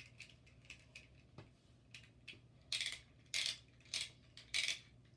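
Plastic Beyblade launcher ratcheting in four short rasps near the end, with small clicks before them, as the ripcord is worked through it before a launch.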